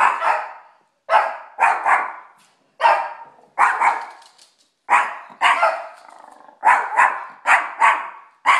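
A dog barking repeatedly: about a dozen sharp barks, some single and some in quick pairs, each trailing off in a short echo.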